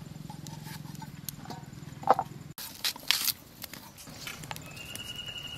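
Potato being peeled and cut against a bonti, the fixed curved blade of an Indian floor cutter, with a few sharp knocks and taps about two and three seconds in. Near the end comes a long high whistle-like call.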